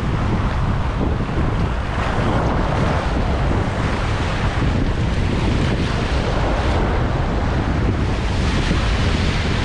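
Rough sea surf washing in a steady rush, with wind buffeting the microphone.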